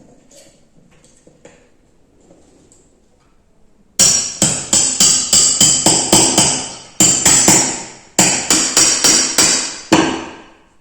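Hammer blows driving out the pin that holds the air rifle's action, about three or four sharp, ringing strikes a second in three runs with short breaks. They start after a few faint taps, about four seconds in.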